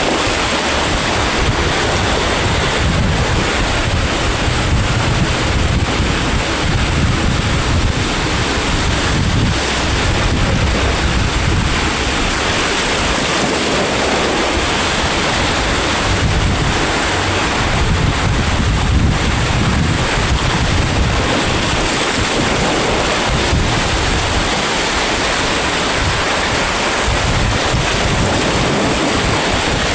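Sea waves washing onto the shore in a continuous surf, with wind buffeting the microphone in uneven gusts.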